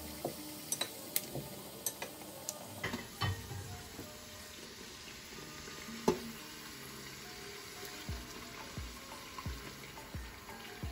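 Masala puri deep-frying in hot oil with a steady sizzle. Scattered clicks and knocks run through it, the sharpest about six seconds in.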